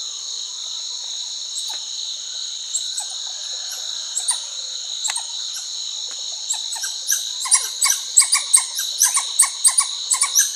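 Titi monkeys (mono tocón) calling over a steady high-pitched insect drone. Their calls start as scattered sharp notes and, about two-thirds of the way through, build into a fast run of loud repeated notes, four or five a second.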